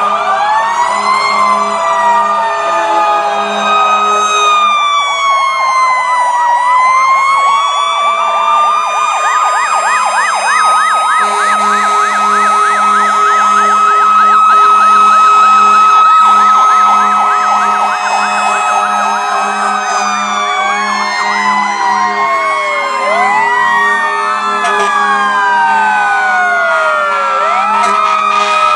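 Several fire truck sirens sounding at once as the trucks pass: slow rising and falling wails overlap each other, with a fast yelp through the middle. Underneath runs a low tone pulsing about twice a second.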